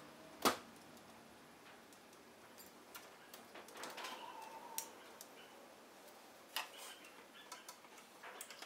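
Wire strippers clicking and snipping on a white copper neutral wire, with scattered faint ticks from handling the tool and wire. The sharpest click comes about half a second in.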